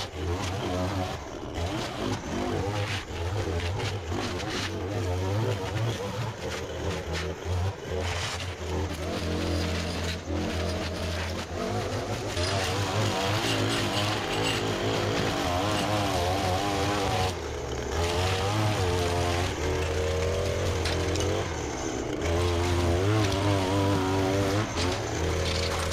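Gas-powered string trimmer running at high speed while cutting grass and weeds, its engine pitch wavering up and down as the throttle is worked, with a brief dip about two-thirds of the way through.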